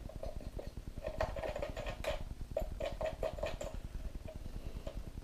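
Hands fiddling with a plastic-bodied studio strobe and a tag on its mount: an irregular run of small clicks, taps and rustles, busiest in the middle.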